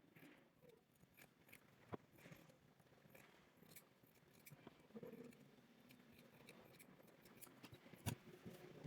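Scissors cutting through felt: faint, irregular snips and clicks, with a sharper click about two seconds in and another near the end.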